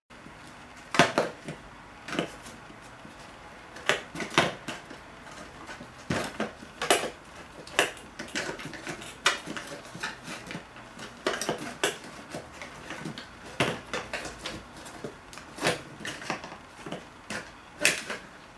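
Irregular hard clicks and clinks, like dishes or utensils knocking together, some ringing briefly.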